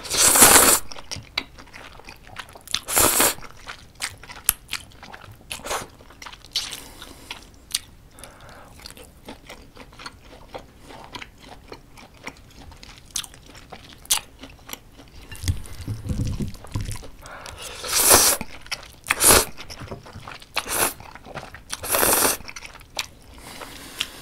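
Close-miked eating of jjapaguri, instant black-bean-sauce ramen with chunks of beef: the noodles are slurped in short loud rushes at the start, about three seconds in, and three times near the end. Between them come soft chewing and wet mouth clicks.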